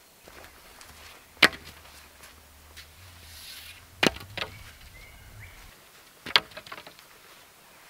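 Wooden poles knocking together as they are handled and set down: three sharp knocks about two and a half seconds apart, the middle one followed by a few smaller clacks.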